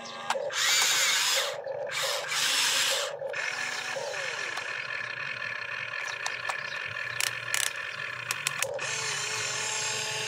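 Electric motors and gears of a toy RC excavator whirring as it works its boom and bucket, with two louder bursts of noise in the first three seconds and a few sharp clicks in the second half.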